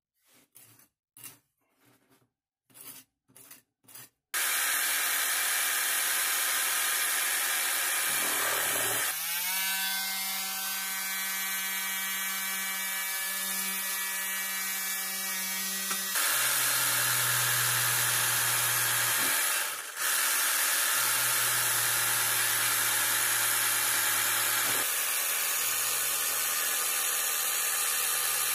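Short scraping strokes of a putty knife spreading on toast. About four seconds in, a cordless power tool starts and runs almost without a break, with a steady motor whine through the middle and a short pause near 20 seconds. Near the end, a Milwaukee Hackzall reciprocating saw is cutting through a head of lettuce.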